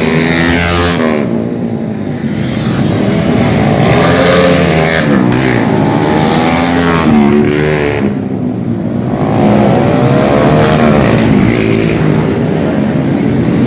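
Several racing scooters pass one after another on a tight circuit, their small engines revving, the overlapping engine notes rising and falling in pitch.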